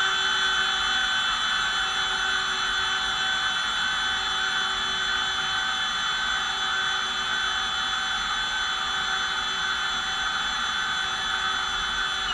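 Cordless drill running at a steady speed as it bores into the thick corner of a solar panel's frame, a constant whine that cuts off sharply near the end. The solid, thick corner makes this slow, hard drilling.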